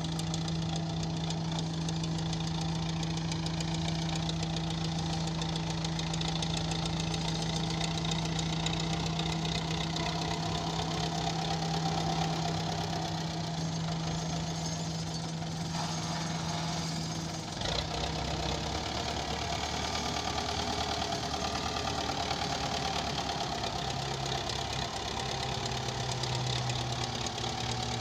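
Belarus 510 tractor's four-cylinder diesel engine running steadily under load while it pushes soil with its blades. Its note changes about 17 seconds in and drops lower about 24 seconds in.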